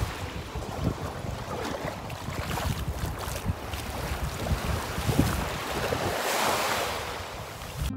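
Wind buffeting the phone's microphone in gusts over the steady wash of small waves on a sandy shore, the surf hissing louder about six seconds in.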